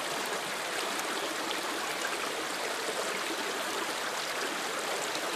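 Creek water running steadily over rocks.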